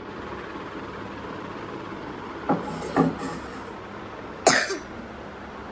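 Brass vessels being set down on the shelves of a display cabinet: two knocks about two and a half and three seconds in, then a louder, brighter clink about four and a half seconds in, over a steady background hum.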